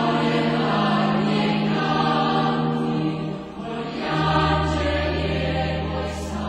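Choir singing a slow sacred chant in long held notes, in two phrases with a short break about halfway through.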